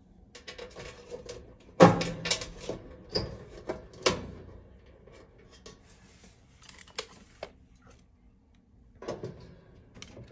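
Sheet-metal dryer heating element housing being handled and fitted into place: scattered metallic knocks and rattles, the loudest about two seconds in and again about four seconds in, with a few lighter taps later.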